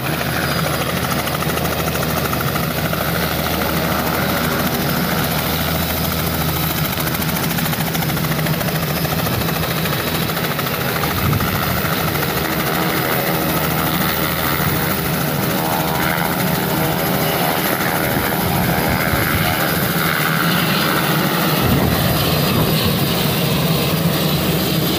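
Light helicopter's engine and rotor running steadily on the pad, then lifting off for takeoff, a little louder toward the end.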